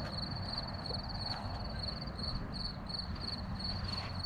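Crickets chirping steadily in short regular pulses, about three to four a second, over a low rumbling background noise.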